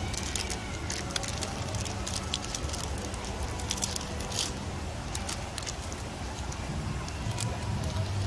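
Foil wrapper of a Chronicles football card pack crinkling as it is torn open and handled: bursts of sharp crackles, loudest about four seconds in, over a steady low background hum.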